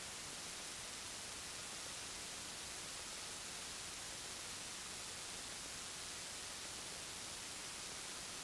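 Steady, faint hiss of electronic static, even and unchanging, with no engine sound coming through.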